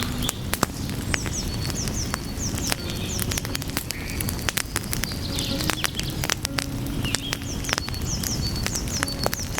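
Wood fire crackling, with frequent sharp pops and snaps over the steady low rumble of the flames. A few clusters of short, high chirps come and go behind it.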